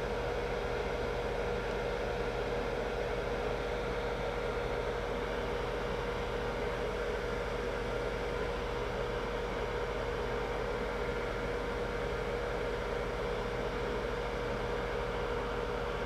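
Fume-extraction fans running, the intake on full blast and a small fan at 5 volts: a steady whir with a constant hum.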